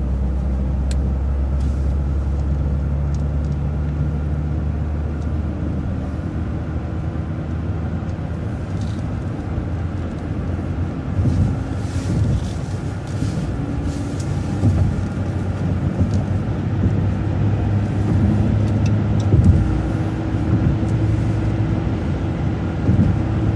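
Bus engine and road noise as the bus drives up a freeway on-ramp: a steady low engine drone that changes pitch a few seconds in, then a rougher rumble with a few faint rattles.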